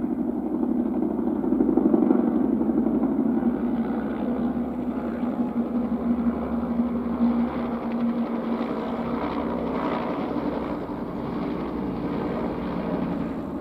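Domestic cat purring, a loud, steady, close rumble.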